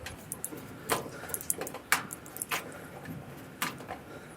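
A screwdriver backing out a small screw from a dryer's door switch mount: a handful of light, irregular metallic clicks as the tip catches and turns.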